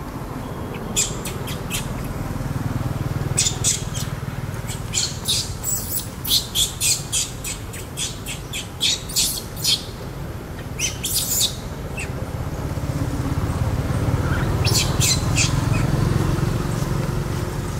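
Runs of short, sharp, high-pitched animal chirps in quick succession, clustered in the first two-thirds and again briefly near the end, over a steady low rumble.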